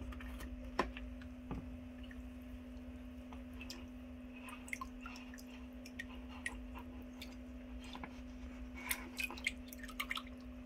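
Water dripping in scattered small drops and light clicks, a little more often near the end, over a faint steady hum.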